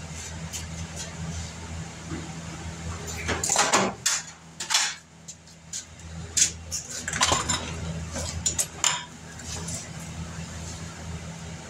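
Metal tools and sheet-metal pieces clinking and clanking in irregular knocks, several close together about a third of the way in and again in the second half, over a steady low hum.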